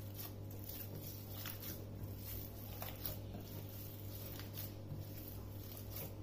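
Hands kneading and squeezing chilled seekh kabab mince in a ceramic bowl: faint, soft squelches and pats, over a steady low hum.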